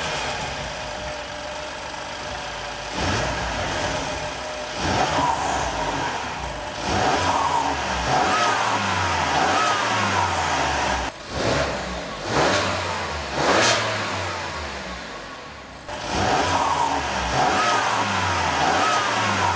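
BMW S55 twin-turbo inline-six, fitted with K&N drop-in air filters, revved repeatedly in short free-revs with the hood open. A whistle rises with each rev; this is the turbo spool, a little more audible with the new filters.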